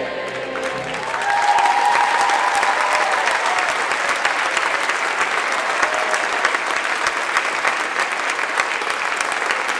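The final chord of a choir and orchestra rings away, and about a second in a large audience breaks into steady applause.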